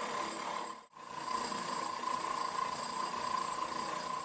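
Metal-cutting machine clearing stock from a cast iron block for dovetails: a steady cutting noise over a steady motor whine. The sound drops out briefly about a second in, then resumes unchanged.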